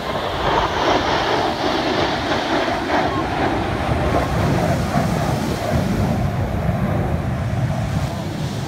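Jet noise from a four-ship formation of F-16 fighters passing overhead. A loud rushing hiss is strongest in the first few seconds and gives way to a deeper rumble in the second half.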